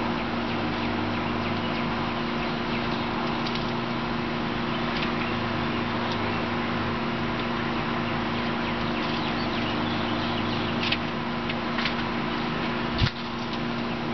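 A steady machine hum runs throughout over a noisy background. A few faint ticks come in the second half, and a single sharper knock comes near the end.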